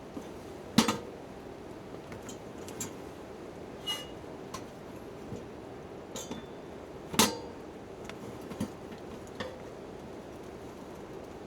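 Steady hiss of light rain with a campfire's scattered sharp pops and clicks, two of them much louder, about a second in and about seven seconds in.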